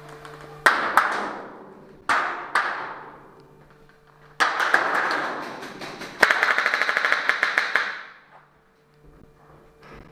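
Paintball gunfire ringing inside a steel shipping container: a few single shots in the first three seconds, then two rapid strings of shots about halfway through, the second lasting over a second.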